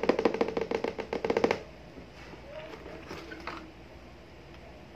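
A rapid burst of sharp pops, about ten a second, like automatic gunfire, stopping abruptly after about a second and a half. Faint rustling and light taps of a cardboard box being opened follow.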